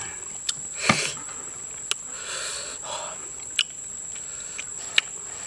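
Clicks and crackles of a cooked river prawn's shell being pulled apart by hand, the sharpest about a second in, over a steady high-pitched insect call.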